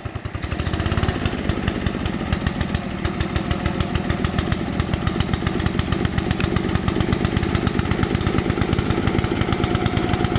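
Small engine of an MTD 990 riding mower running with a rapid, even putter; it gets louder about a second in and holds steady.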